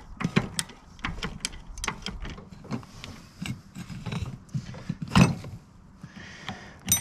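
Irregular metallic clicks and clanks of hand work on a riding mower's wheel as it is taken off, with one louder clank about five seconds in.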